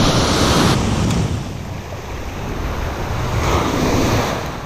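Ocean surf breaking on the beach close by: a wash of noise that is loudest at the start, eases off, then swells again with another wave about three and a half seconds in.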